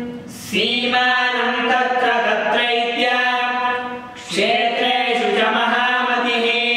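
Male voices chanting a Sanskrit devotional hymn (stotra) to a slow sung melody, unaccompanied. Two long phrases of held notes, with a short breath near the start and another about four seconds in.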